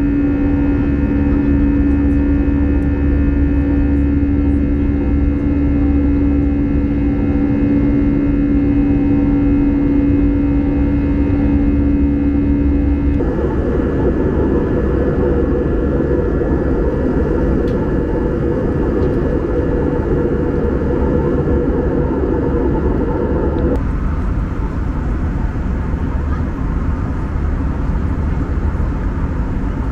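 Steady in-flight cabin noise of an Airbus A320: CFM56 jet engines and airflow, a constant low rumble with a steady hum over the first part. The sound changes abruptly twice, about halfway through and again later, where the shots are cut.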